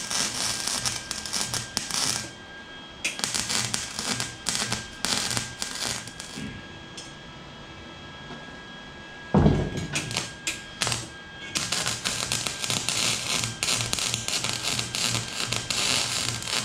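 Wire-feed welder arc crackling as steel exhaust tubing is welded: bursts of a second or two over the first six seconds, then a steady run of crackle over the last five seconds. A loud thump about nine seconds in, while the welding has stopped.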